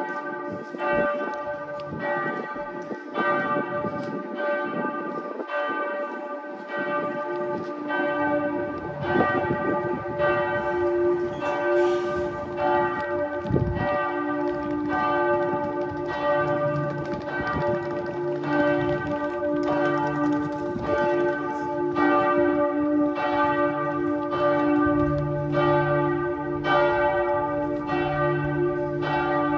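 Church bells ringing in a continuous peal, strokes following each other roughly once a second with their ringing overlapping. Deeper bells join in partway through and grow stronger toward the end.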